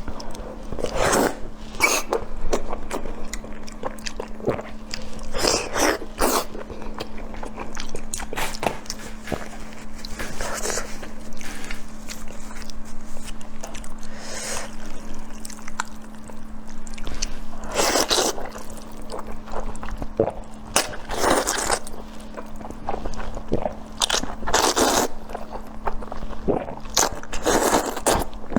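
Close-miked eating of spicy eel and fire noodles: irregular bites and chewing, with a few longer slurps, over a steady low hum.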